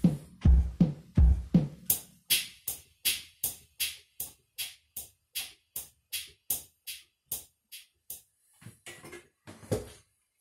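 Yamaha keyboard drum voices played as a tick-tock clock imitation: heavy bass-drum beats with cymbal hits for about two seconds, then an even run of sharp cymbal ticks nearly three a second. The ticks stop about eight seconds in, leaving a few faint knocks.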